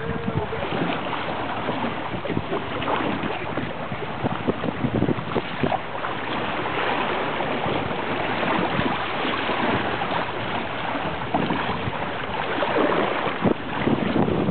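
Wind buffeting the microphone and water splashing along the hulls of a small sailing trimaran under way, a steady rush with irregular gusts.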